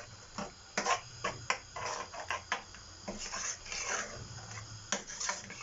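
Kitchen clatter: a run of irregular light clicks and knocks, with a few short scrapes in between.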